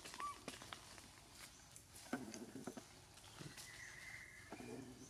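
Faint forest floor sounds: scattered light taps and rustles of animals moving through leaf litter, with a short chirp near the start and a steady high call lasting about a second, about three and a half seconds in.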